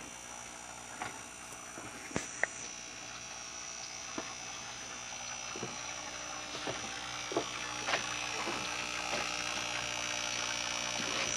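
A steady electrical buzz with several low hums and a thin high whine, growing slightly louder toward the end, with a few light clicks and taps scattered through it.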